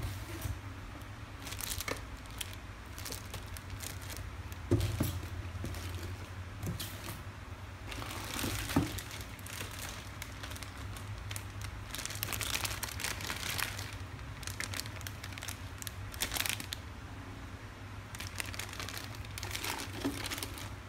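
Clear plastic wrapping crinkling in irregular bursts as it is handled, with a couple of sharper knocks about five and nine seconds in.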